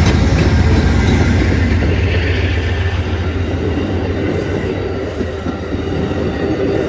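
A train passing close by: a heavy low rumble with rolling wheel noise above it, slowly fading.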